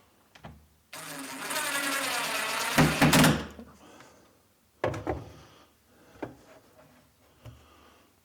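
Cordless drill driving a screw into a drawer slide, the motor running steadily for about two and a half seconds and getting louder as the screw seats just before it stops. A few light clicks and knocks of handling follow.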